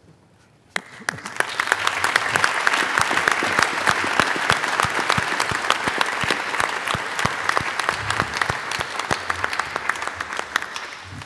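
Audience applauding. It starts with a single sharp clap about a second in, swells quickly to steady clapping, and dies away near the end.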